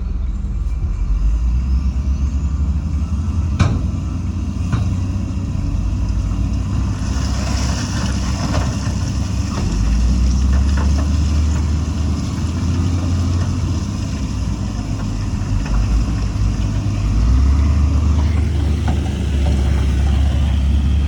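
Heavy earthmoving machinery's diesel engine running with a deep, steady rumble. Two sharp knocks come between three and five seconds in, and a high hiss rises over the engine from about seven seconds in until near the end.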